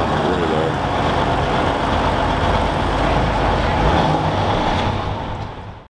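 Steady road traffic noise, a low rumble with hiss, that cuts off suddenly near the end.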